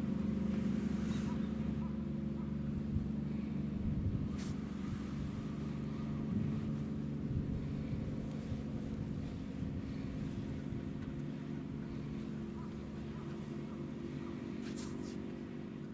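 An engine running steadily at an even idle, slowly fading toward the end, with a few faint clicks.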